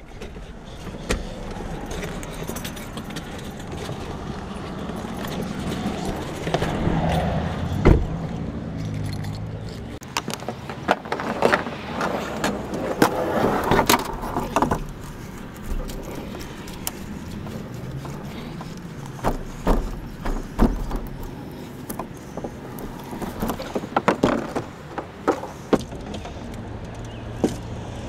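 A canoe being unstrapped from a vehicle and set down: tie-down strap hooks and buckles clinking, with a scatter of sharp clicks, knocks and thumps, after a low steady rumble in the first several seconds.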